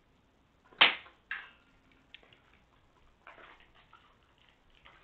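Kittens playing with a wand toy: a sudden sharp sound about a second in, a smaller one just after, then soft rustling and light knocks.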